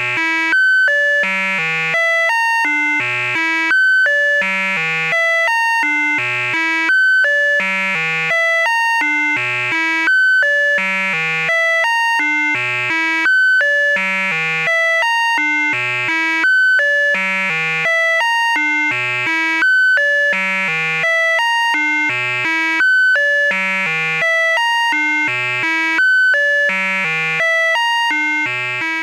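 Electronic tones from a simple breadboard filter circuit: a square-wave oscillator stepping quickly through a repeating sequence of pitches, low to high, each note passed through a resonant filter that leaves a bright, buzzy ringing near 2 kHz. The same note pattern comes round about every second and three quarters.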